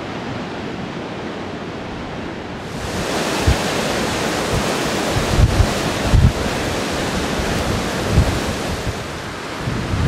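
Rough surf breaking on rocks far below, with gusty wind ahead of a typhoon buffeting the microphone. About three seconds in the sound turns brighter and hissier, and several low wind thumps hit the microphone after that.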